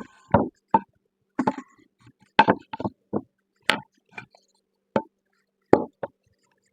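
Cut cedar fence-picket pieces being handled and set down on a workbench: a dozen or so light wooden knocks and clunks at uneven intervals.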